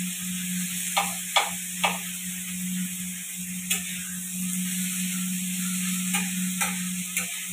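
Chopped onions sizzling in a shallow steel pan as they fry towards browning, stirred with a flat metal spatula that scrapes and clinks against the pan: three clinks in quick succession about a second in, one near the middle and three more near the end. A steady low hum runs underneath.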